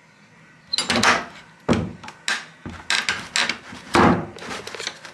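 Wooden door banging and rattling in its frame as someone shut inside tries to get it open, held shut by a shoe wedged against it: a rapid, irregular series of loud knocks and thuds starting about a second in.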